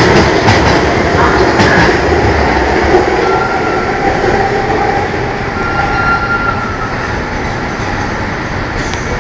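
Kawasaki C151 MRT train (Mitsubishi GTO chopper control) pulling away along an elevated viaduct, its wheels and running gear rumbling close by at first and fading steadily as it recedes. Two brief, thin high-pitched whines come through about three and six seconds in.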